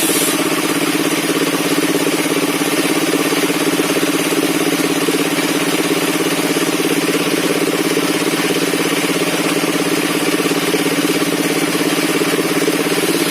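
Circular sawmill running steadily, its machinery making a constant, unchanging mechanical sound.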